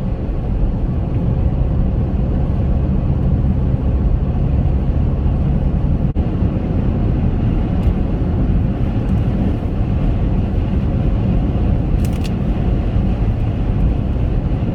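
Steady road and tyre noise with low engine hum inside the cabin of a Chevrolet Captiva SUV driving on a rough, snow-covered road.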